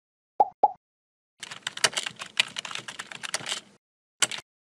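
Computer keyboard typing: a rapid run of key clicks lasting about two seconds, with two short pops before it and a short click near the end.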